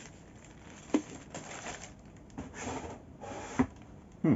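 Cardboard and plastic packaging handled by hand: soft rustling with a few sharp knocks, the loudest near the end.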